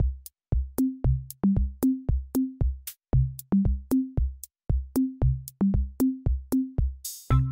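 Background music: an electronic drum-machine beat of deep kicks and sharp hits, with a short burst of hiss near the end, after which sustained bass and keyboard tones join in.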